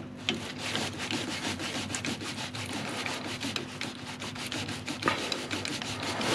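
Screwdriver scraping and clicking against the bottom radiator hose and its clamp as the tight hose is worked loose: a quick, even run of small scrapes.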